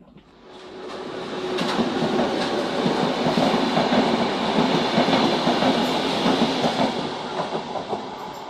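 A Renfe train passing along the track. Its sound swells over the first two seconds, holds loud, and begins to fade near the end.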